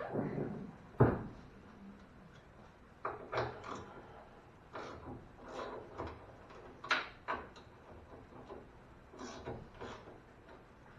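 Knocks and clacks from work on a truck's hood and its latch. One sharp, loud knock comes about a second in, followed by a string of lighter separate clicks and knocks.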